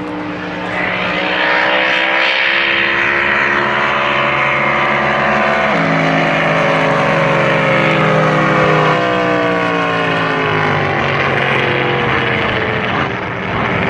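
Drag boat's racing engine at full throttle during a pass. Its pitch slides steadily and drops in a step about six seconds in, then eases off near the end.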